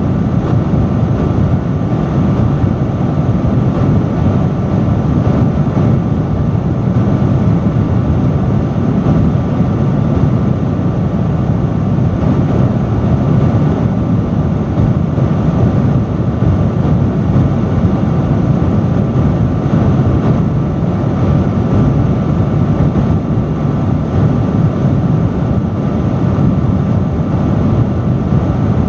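Industrial fan running steadily at high speed: a loud, constant rush of air, heaviest in the low range, with a faint steady whine on top.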